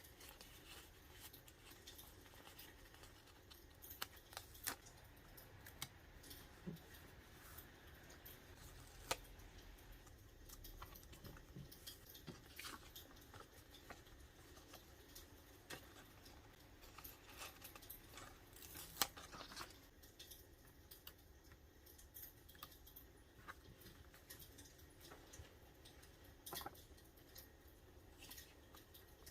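Faint desk work sounds of sticker and paper handling on a Traveler's Notebook: scattered sharp clicks and rustles. Underneath is a steady soft hiss of rain and the crackle of a wood fire.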